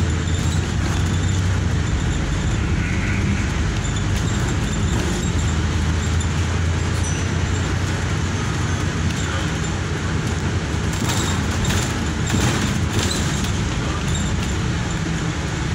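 Bus engine running with tyre and road noise, heard from inside the bus as a steady low drone, with a few brief rattles about eleven to thirteen seconds in.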